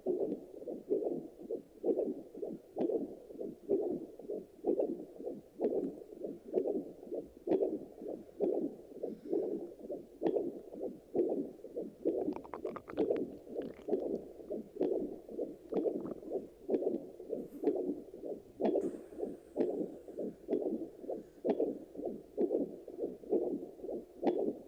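Sonoline B fetal Doppler monitor relaying the mother's own heartbeat as a steady pulsing rhythm, picked up through her abdomen after delivery. About halfway through the pulses turn briefly louder and scratchier.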